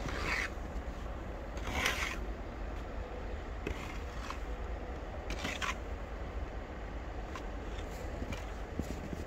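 A few slow, irregular crunching footsteps in deep snow, over a steady low rumble.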